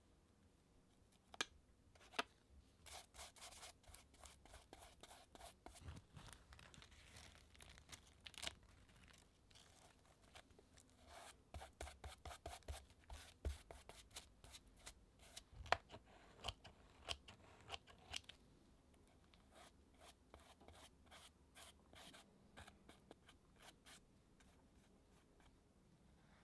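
Faint crinkling, crackling and rustling of paper and dry craft material being handled and pressed onto a journal page, with a few sharper clicks among them. It thins out after the busiest stretch.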